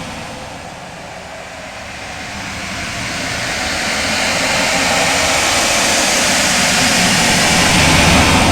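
Loud designed 'outer space' ambience sound effect: a dense, steady wash of noise across low and high pitches that slowly swells, growing from about a second in to its loudest near the end.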